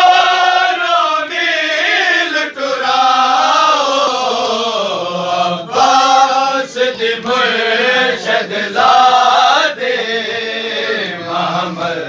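A group of men chanting a noha, a Shia mourning lament for Imam Husain, together in unison.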